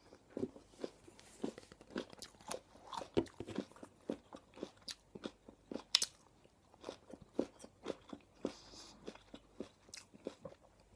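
Close-miked chewing of a raw carrot: a steady run of irregular crisp crunches, with one sharper crunch about six seconds in.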